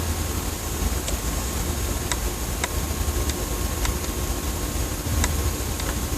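A steady low rumble, like distant engine noise in the sky, with a thin steady hum above it and sharp faint ticks every half second to second.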